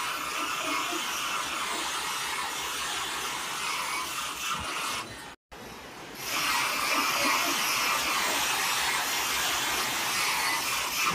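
Harsh electronic buzzing noise from heavily effect-processed audio. It cuts out abruptly about five and a half seconds in and starts again a moment later.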